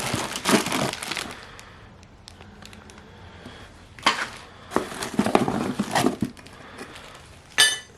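Packaging rustling and crinkling as parts are handled and lifted out of a garage door opener kit box, with irregular knocks and a sharp metallic clink near the end.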